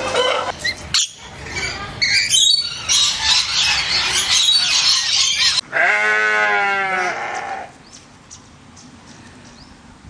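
Sheep bleating once, a single long call of about a second and a half that drops in pitch at its start, about six seconds in. Before it comes a loud, noisy stretch of unclear source lasting several seconds.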